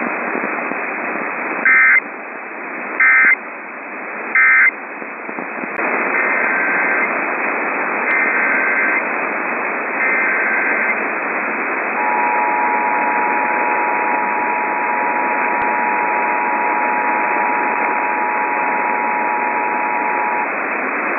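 Emergency Alert System tones over radio static. Three short, loud SAME data bursts end the previous warning. Three longer data bursts follow, then an eight-second two-tone attention signal that opens the next alert.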